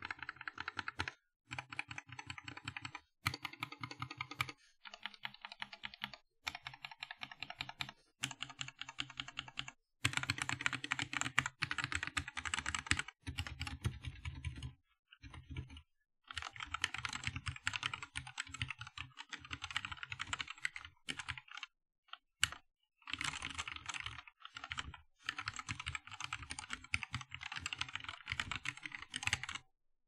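Typing on a small mechanical keyboard fitted with unlubed Cherry MX Black linear switches: fast runs of clacking keystrokes, broken every few seconds by short pauses.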